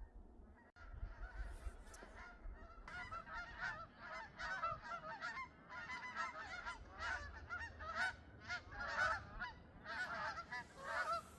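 A flock of geese honking, with many short calls overlapping, starting about three seconds in and carrying on steadily.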